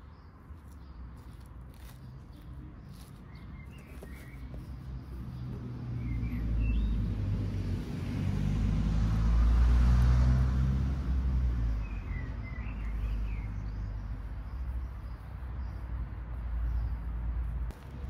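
A car driving past, its low engine and tyre rumble swelling, loudest midway, then fading. Small birds chirp briefly a few times.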